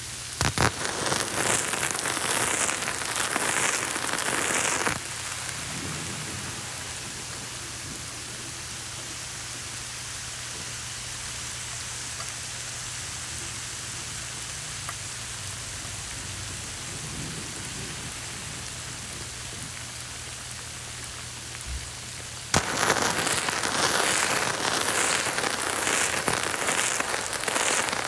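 Hot water poured onto coffee grounds in two pours, a splashing hiss each time, the first lasting about five seconds and the second starting near the end. Between the pours only a quieter steady hiss.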